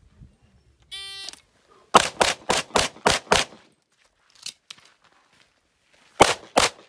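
A shot timer gives its start beep, and about a second later six gunshots are fired in a quick string, roughly a quarter second apart. After a pause of nearly three seconds, two more shots follow near the end.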